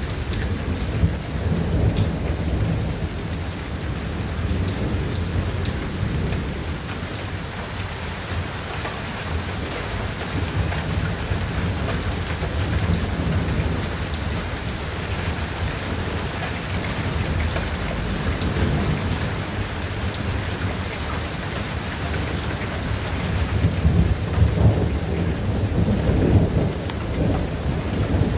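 Thunderstorm: rain falls steadily, with scattered drops ticking, under low rolling thunder that rumbles almost without a break. The thunder swells louder near the end.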